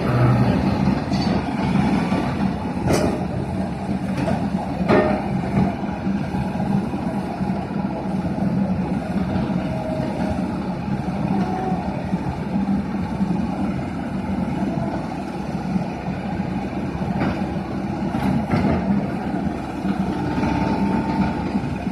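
Diesel engine of a crawler rotary piling rig running steadily under load while it drills a pile bore, with a few sharp metallic knocks, two within the first five seconds and more near the end.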